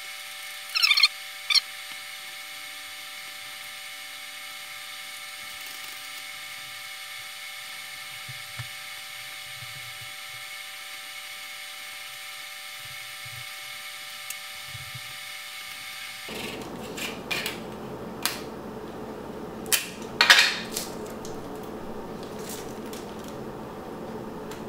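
Short, sharp scrapes of a tool scraping old adhesive off the LCD's ribbon-contact edge, loudest about a second in and again around twenty seconds in, with light clicks between. A steady electrical hum underlies the first part and stops suddenly about sixteen seconds in.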